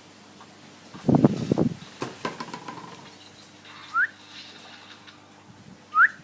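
A cockatiel gives two short rising chirps, about four and six seconds in. Louder than either, a muffled rustle with a few clicks comes about a second in.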